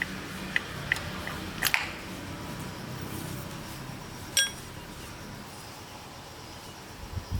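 Metal tools and parts clinking as they are handled: a few light taps in the first two seconds, then one clear ringing clink about four and a half seconds in.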